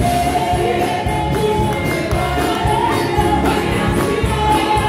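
Live gospel worship music: a congregation singing together over a steady beat.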